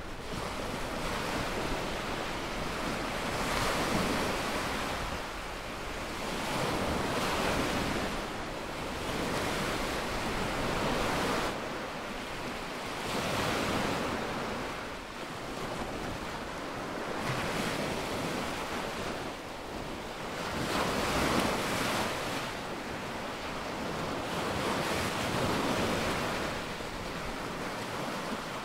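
Small waves breaking at the shoreline and washing up and back over the sand, the surf swelling and fading every three to four seconds.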